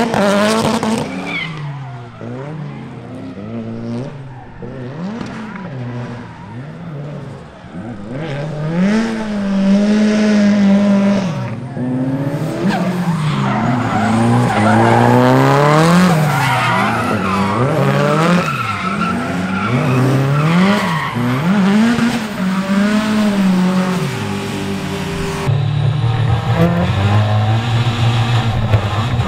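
Drift car engines revving hard, the pitch rising and falling every second or two as the throttle is worked, with tyres squealing and skidding through the slides.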